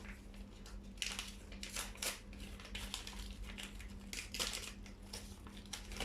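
Packaging crinkling and rustling in quick, irregular handling sounds as a small bag of doll clothes is opened.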